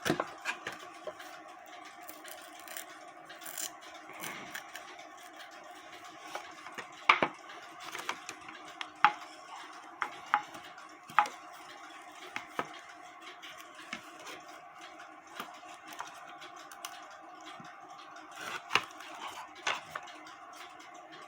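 Scattered light clicks, taps and scrapes of a small cutting tool working through Tyvek paper on a cuckoo clock bellows, against a steady faint hum. The clicks come irregularly, several a few seconds apart, the loudest about seven seconds in and near the end.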